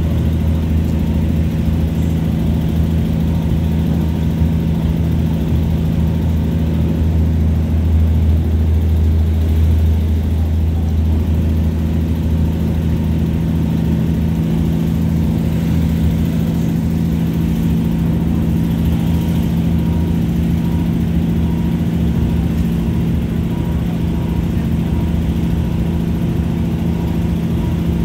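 Inside a 2800 Class diesel multiple unit running at speed: the steady low drone of its diesel engine and running gear, with the low hum swelling slightly about eight to ten seconds in.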